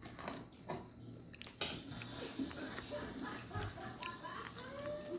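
Cutlery and dishes clinking at a dinner table: several separate sharp clicks and knocks, with faint high wavering sounds in the second half.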